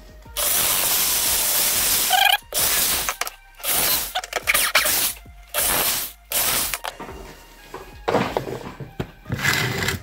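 Cordless drill boring into OSB board: one long run of about two seconds, then a string of shorter bursts as the drill is started and stopped.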